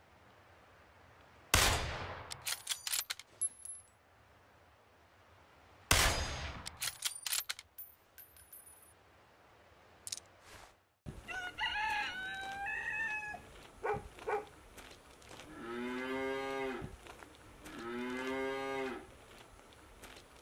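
Two loud bangs with ringing tails, about four seconds apart, each followed by sharp high clicks. Later, a few short gliding calls and then two long drawn-out animal calls, each about a second long.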